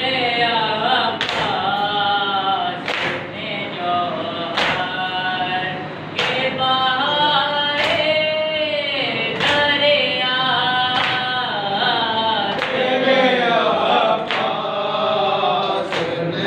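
Nauha, a Shia lament, sung by a male reciter with others joining in. A sharp chest-beating slap (matam) falls about every second and a half and keeps time with the chant.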